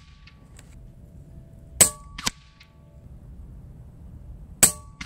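Daystate Pulsar .22 PCP air rifle firing twice on high power, the shots about three seconds apart, each a sharp crack with a brief ringing tone after it. About half a second after each shot comes a second, softer smack of the pellet striking the target downrange.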